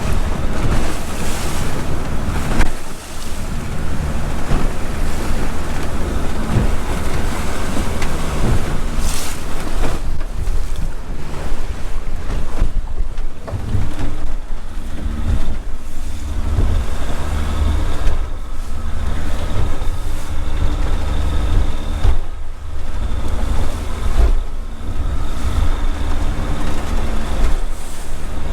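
Motor yacht under way through choppy, confused waves: a steady engine note under the rush and slap of water against the hull, with wind buffeting the microphone.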